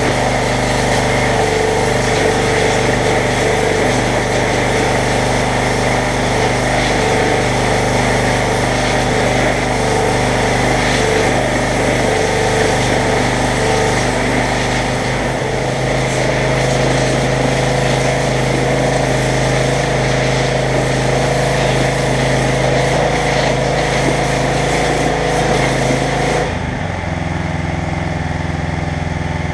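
Pressure washer's engine running, its water jet hissing as it blasts a cast-iron Cummins 5.9 engine block. About three seconds before the end the spray cuts off and the engine's note changes as the trigger is released.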